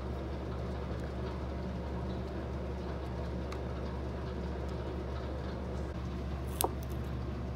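Steady low hum, with a few light clicks and one sharper click about six and a half seconds in.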